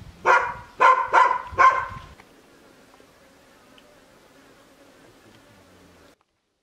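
A dog barks four times in quick succession, then a faint steady buzz runs on until it cuts off suddenly.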